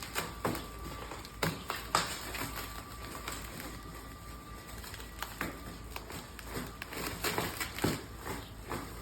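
A cardboard shipping box being opened and handled: irregular crackles, scrapes and knocks of packaging.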